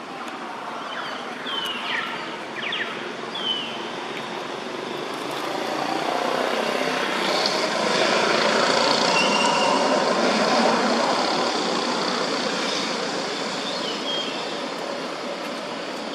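A motor vehicle passing by, its noise swelling to a peak about halfway through and then fading. A few short, high chirps slide downward in pitch in the first few seconds and once more near the end.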